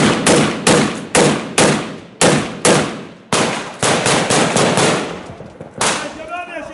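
Rifle fired in quick single shots at close range, about two a second, each crack followed by an echoing tail. The shots break off briefly about three seconds in, resume, and a man shouts near the end.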